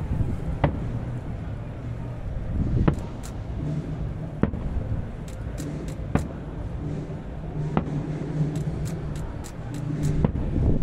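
Distant aerial fireworks shells bursting with sharp bangs every second or two, then a run of crackling snaps near the end, over a steady low rumble.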